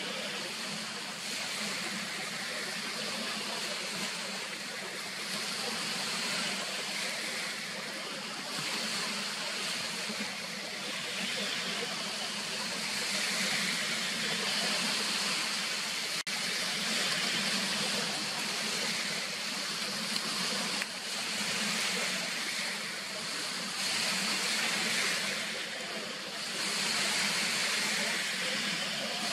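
Lake waves washing against the shore: a steady rushing hiss of water that swells and ebbs every few seconds.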